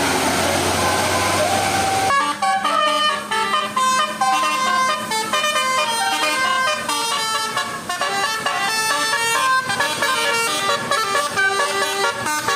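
Bus telolet basuri horn, a multi-trumpet air horn, playing a quick melody of short notes stepping between pitches. It starts about two seconds in, after a stretch of vehicle noise.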